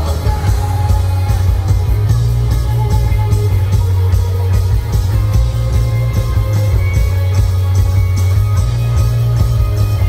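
A rock band playing live through a big PA, recorded from the crowd: electric guitars, bass guitar and drums, with very heavy, booming bass.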